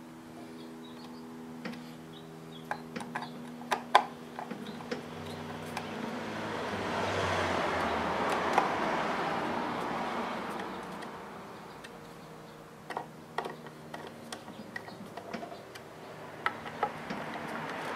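Hand screwdriver turning small screws into a circuit board, light metallic clicks and ticks scattered through the first five seconds and again near the end. In the middle, a broad rushing noise swells up and fades away, over a faint steady hum.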